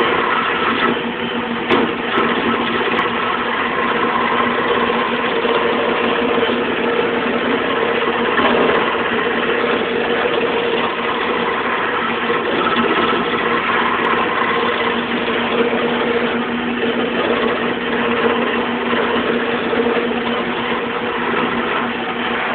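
Wood lathe running steadily with a turning chisel cutting into a long wooden spindle: a constant motor hum under the rough hiss of the tool on the spinning wood.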